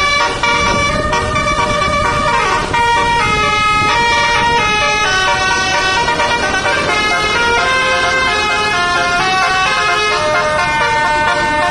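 Tour bus basuri (telolet) horn playing a melody without a break: held multi-tone horn notes stepping up and down in pitch, one after another, over a low rumble.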